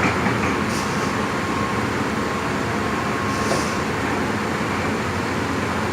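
Heavy diesel machinery running steadily, with two brief faint hisses, one about a second in and one a little past halfway.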